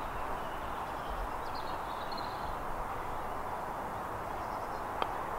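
Steady outdoor hiss of breeze in the open air, with faint bird chirps about two seconds in. Near the end comes one sharp click: the putter striking the golf ball.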